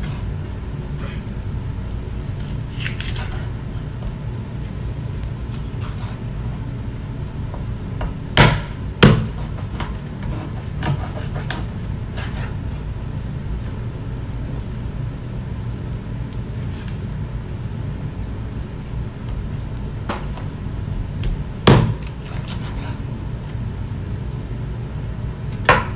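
Chef's knife cutting up a raw chicken on a bamboo cutting board: scattered sharp knocks of the blade chopping through onto the board, two loud ones close together about eight and nine seconds in and others later, with fainter taps between. A steady low hum runs underneath.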